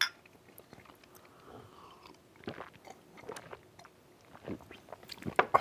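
Two small glasses of pilsner clink together once in a toast, then faint gulping and mouth sounds as the beer is drunk down, a few louder ones near the end.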